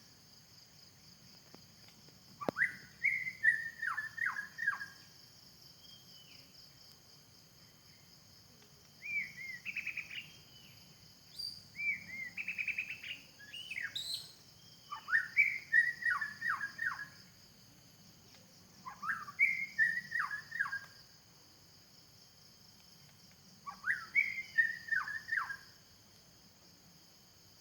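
White-rumped shama singing: about six short phrases of clear whistled notes, many sliding down in pitch, with pauses of a few seconds between phrases.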